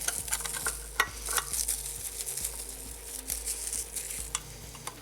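Thin plastic protective film being peeled off small kit speakers, a dry crinkling crackle with many quick ticks.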